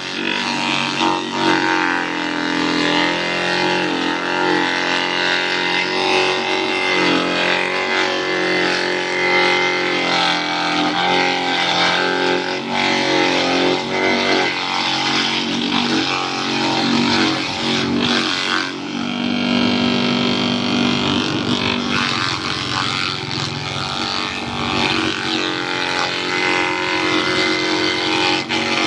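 Small motor-driven wooden chopping machine running continuously as it shreds leaves finely. It makes a loud, steady mechanical drone whose tone shifts now and then.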